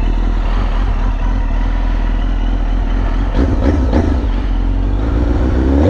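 2001 Suzuki GSX-R1000 K1's inline-four engine idling steadily through a Yoshimura aftermarket muffler.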